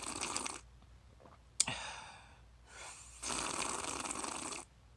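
Sucking a drink through a straw from a lidded plastic cup: two long sucking draws, with a sharp click between them about a second and a half in.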